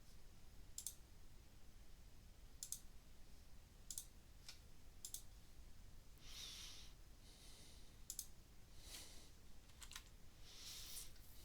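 Faint computer mouse clicks, single and a second or more apart, with a few soft breathy rustles between them.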